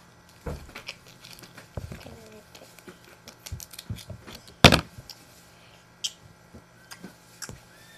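Close handling noises of craft materials: scattered light taps, clicks and rustles, with one sharp knock a little past halfway through.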